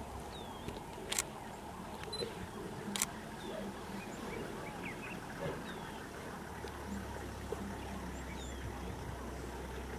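Male lions feeding on a buffalo carcass: low tearing and chewing at the meat. Two sharp clicks like camera shutters come about a second and about three seconds in, small birds chirp faintly, and a low steady hum comes in about two-thirds through.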